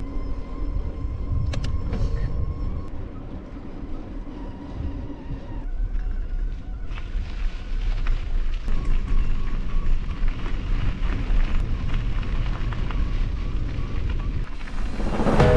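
Wind rumble and rolling noise with scattered clicks and rattles, as from a camera carried on a mountain bike being ridden. Music comes in near the end.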